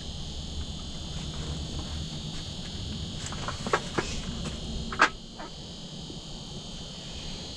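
Steady high-pitched hiss with a faint whine from the running propane heater and sonar flashers inside an ice-fishing shelter. A few short clicks and squeaks come midway, the sharpest about five seconds in.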